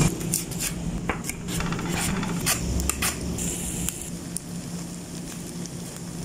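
Hot oil sizzling in a pan as tofu and garlic fry, with scattered sharp crackles and pops, loudest at first and thinning out after about three seconds, over a low steady hum.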